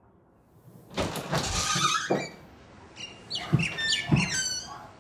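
A glass-paned door being opened and a person stepping in: a rush of door noise about a second in, then a quick run of short, high squeaks over a few thuds of footsteps.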